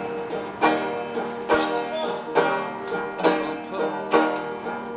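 Instrumental break in a folk-style song: a plucked string instrument strummed in a steady rhythm, a chord a little under once a second, each ringing and fading before the next.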